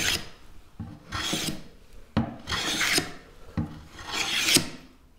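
Hand plane shaving the edge of a wooden board: several strokes about a second and a half apart, each a short swishing cut.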